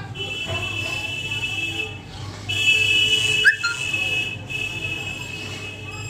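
Hot-air rework station blowing on a phone circuit board to melt the solder around a charging jack, with a steady low hum and a high whistle that sounds twice, louder the second time. A short sharp click comes about three and a half seconds in.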